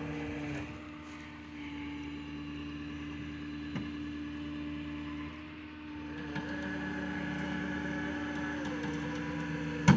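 Tow truck engine and winch running steadily as the cable winches a pickup truck up onto the road, with the engine note rising and falling twice. A sharp clank right at the end.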